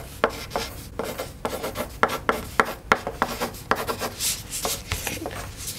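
Graphite pencils scratching on paper: a quick, uneven run of short drawing strokes, several a second.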